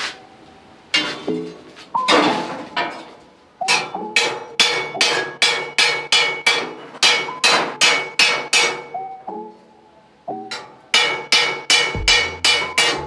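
Hand hammer striking a steel flat bar as it is bent around a ring-shaped former, giving sharp ringing metal blows in runs of about two to three a second, with short pauses between the runs.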